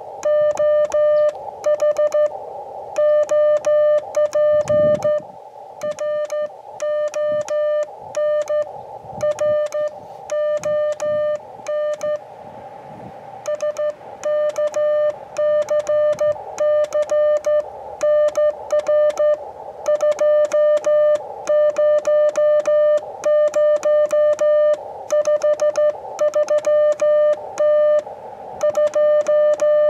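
Morse code (CW) on an Elecraft KX2 transceiver: a steady single-pitch tone keyed on and off in dits and dahs as the operator sends on a paddle. Fainter, hissier tones and static fill some of the gaps.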